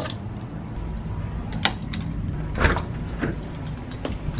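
Car keys jangling as they are lifted off a wall hook, then several short knocks and clicks of handling, and an interior door opening near the end.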